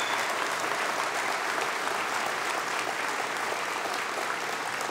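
Audience applauding, a dense steady clapping that eases off slightly toward the end.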